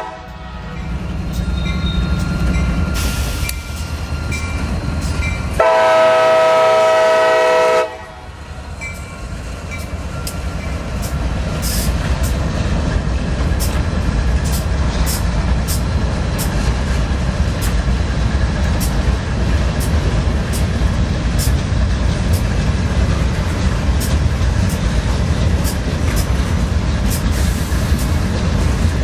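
Freight train passing close by at a grade crossing: one long horn blast of about two seconds a few seconds in, then the steady rumble of freight cars rolling past, their wheels clicking over the rail joints.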